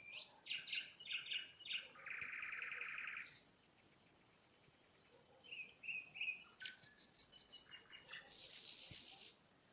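A songbird singing two phrases, each a run of short chirps followed by a buzzy trill lasting about a second.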